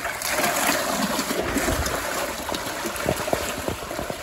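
A swarm of catfish thrashing at the surface as they feed on thrown-in food scraps: steady churning water full of many small, overlapping splashes.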